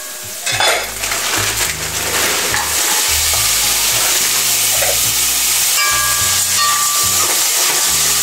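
Mixed vegetables hit hot oil and seasoning in a pot and sizzle loudly, starting about half a second in. The sizzle stays steady while they are poured in and stirred.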